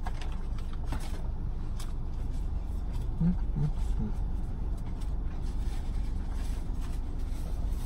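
Mouth-closed chewing of a veggie burger over a steady low rumble inside a car, with three short low hums about three to four seconds in.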